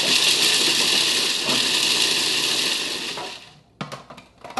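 Food processor running, chopping toasted almonds with the nuts rattling in the bowl; the motor stops about three and a half seconds in, followed by a couple of short clatters.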